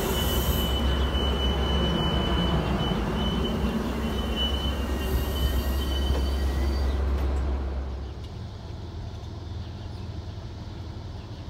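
Metra bilevel commuter cars rolling past on the rails, a low rumble with a steady thin high-pitched wheel squeal; about eight seconds in the last car clears and the sound drops to a fainter, receding rumble.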